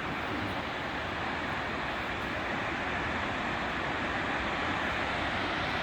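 Steady rush of a tall waterfall, an even noise of falling water with no breaks.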